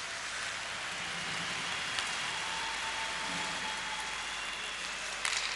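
Ice hockey arena ambience during play: a steady wash of crowd noise with skates and sticks on the ice, and a single sharp click about two seconds in.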